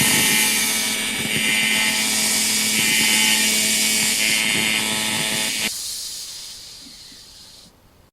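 Electric angle grinder running at high speed, a loud steady whine with a strong hiss. About six seconds in the low part of the sound cuts off and the rest fades out.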